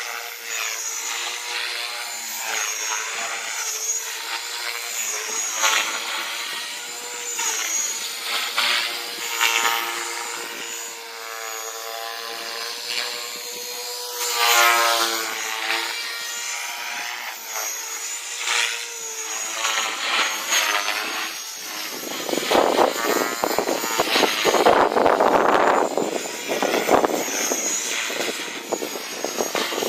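A small engine buzzing, its pitch wavering and swelling up a few times, with heavy wind buffeting the microphone from about two-thirds of the way in.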